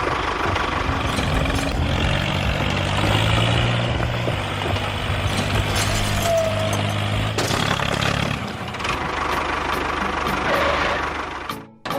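Engine running steadily, with a held low hum through the middle; the sound drops out abruptly near the end.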